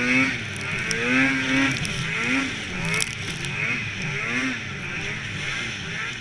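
Snowmobile riding over a rough, rutted snow trail, its engine revving up and down again and again with steady track and wind noise. A few sharp knocks come about three seconds in.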